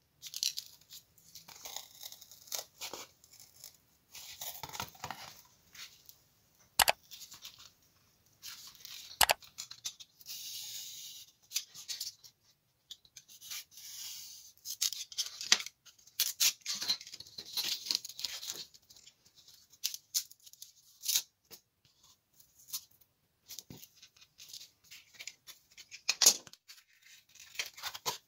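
Craft knife slicing through foam board along a steel ruler: a run of short, scratchy cutting strokes with a few sharp clicks between them.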